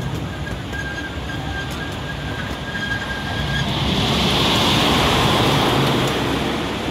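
Miniature park train running on its track with a steady rumble of wheels on rail. A faint thin whine is heard in the first half. About halfway through, a louder rushing noise swells and fades over about three seconds.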